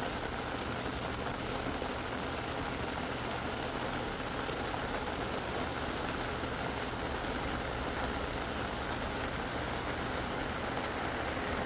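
Steady hiss of background noise with a faint low hum underneath, even throughout and without distinct events.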